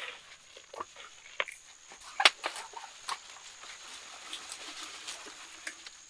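Soil and dried cow-dung mix being poured from a woven sack into a grow bag: scattered rustling of the sack and patter of falling soil, with one sharper crack about two seconds in.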